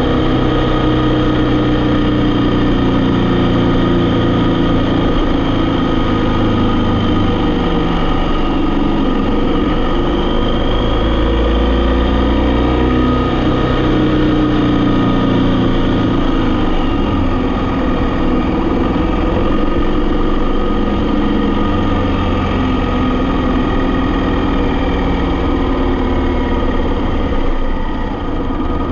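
A vehicle's engine running under way, its pitch rising and falling as engine speed changes.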